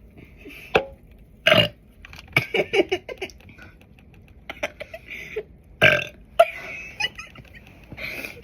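A girl burping several times in a row, short sudden burps, the loudest about a second and a half in and again about six seconds in.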